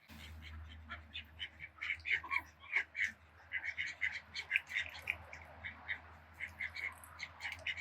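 Ducks calling: a steady run of short quacks, several a second and unevenly spaced, over a low steady hum.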